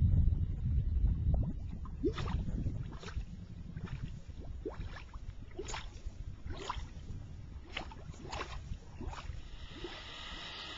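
Geothermal mud pot bubbling: about nine separate gloopy plops, each a short rising blip, as gas bubbles burst through the mud, roughly one a second. A low rumble is loudest in the first second and a half, and a steady hiss sets in near the end.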